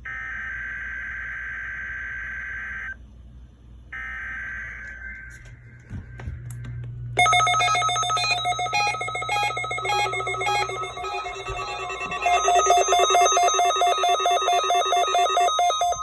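Weather radio playing the NOAA Weather Radio required weekly test. First come shrill, buzzing digital data-burst tones of the kind that open the test, about three seconds of them, a short gap, then one more. About seven seconds in, a loud, rapidly pulsing electronic alert tone of many stacked pitches starts; it sounds like a ringing telephone and gets louder about twelve seconds in.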